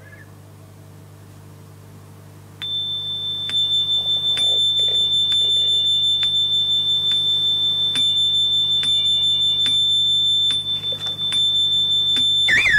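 Over a low electrical hum, a steady high-pitched electronic tone like an alarm comes in about two and a half seconds in and holds, with scattered clicks. Near the end a second, lower tone wavers and slides in pitch.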